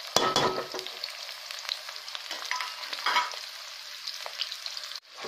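Freshly added chopped onions sizzling in hot oil with cumin in an iron kadhai: a steady frying hiss. There are two louder bursts of clatter and sizzle, one just after the start and one about three seconds in. The sound breaks off abruptly near the end.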